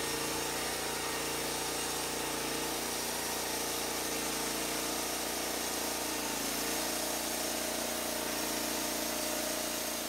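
Portable band sawmill running and cutting through a log: the engine's steady drone under load together with the even hiss of the band blade sawing wood.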